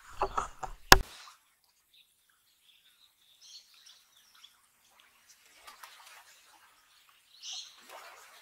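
A quick run of knocks ending in one sharp click in the first second, the loudest sounds here, then faint, short, high bird calls now and then.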